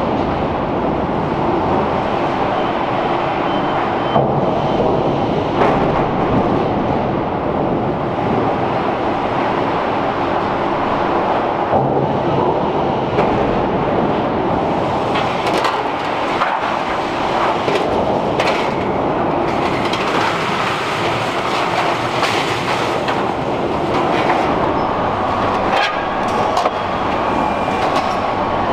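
Car-factory production-line machinery: a steady, dense mechanical din with scattered clanks and clicks.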